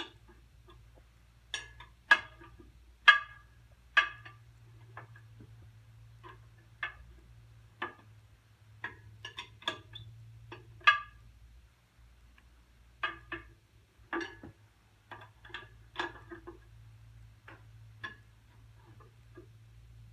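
Wrench on the clutch adjustment nuts of a John Deere 60 tractor, making irregular sharp metallic clicks with a brief ring, roughly one or two a second, as the nuts are tightened a little at a time.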